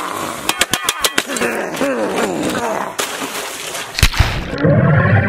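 Water poured onto a burnt computer, with crackling and clattering. A hard hit about four seconds in is followed by loud, low vocal sounds.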